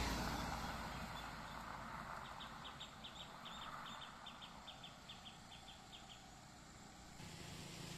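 Road noise of a just-passed truck fading away, then a bird calling in a quick run of short, high chirps, about four a second, for about four seconds over a faint traffic hush. Near the end the low hum of an approaching vehicle's engine comes in.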